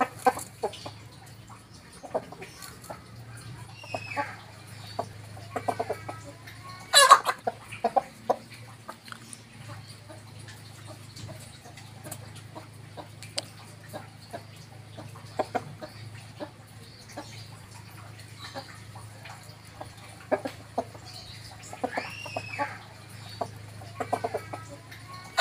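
A rooster and hens clucking while they forage, with many short clucks and two longer rising-and-falling calls. One loud sharp sound comes about seven seconds in, and a steady low hum runs underneath.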